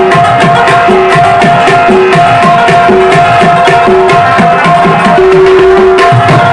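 Tabla and rabab playing an instrumental passage together. The tabla keeps a fast, dense rhythm, its bass drum giving strokes that bend in pitch. The plucked rabab carries the melody above it.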